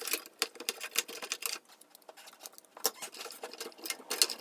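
Hands working inside a Compaq Presario 6000 desktop's case: an irregular run of small clicks, rattles and rustles from cables, plastic connectors and memory-module latches being handled.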